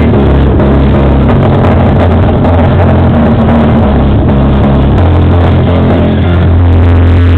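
Music played very loud through a car audio system's two Rockford Fosgate Punch 10-inch subwoofers in a trunk box, the deep bass dominating.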